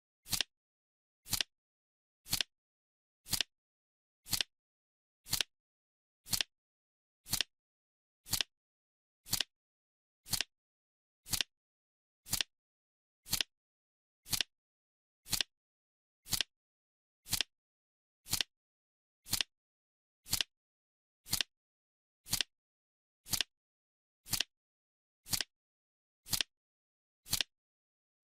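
Clock-style ticking sound effect: one short, sharp tick every second, with silence between the ticks.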